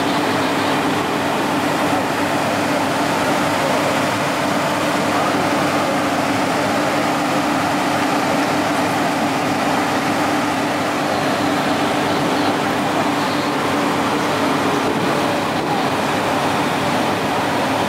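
Steady drone of running machinery with a constant low hum, at an even level throughout, over faint background voices.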